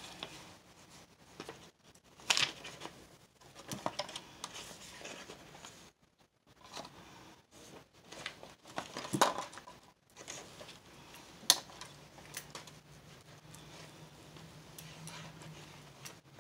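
Intermittent rustling with scattered light clicks and taps as a paint brayer is cleaned off; the sharpest clicks come about two, nine and eleven seconds in.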